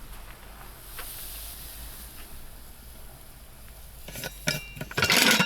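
Cooking sounds: a faint steady sizzle, then a few ringing clinks of utensils or dishes about four seconds in, and a louder clatter about five seconds in.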